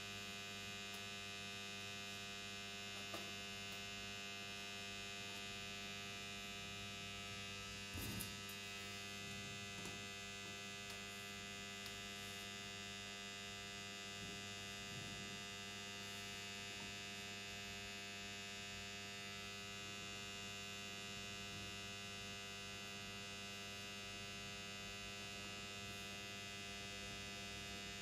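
Steady, faint electrical mains hum made of many unchanging tones, with a few soft clicks, the clearest about eight seconds in.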